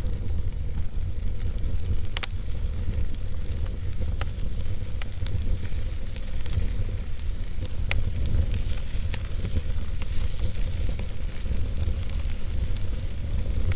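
Fireplace fire burning with a steady low rumble and hiss, broken by sharp crackles and pops scattered through it.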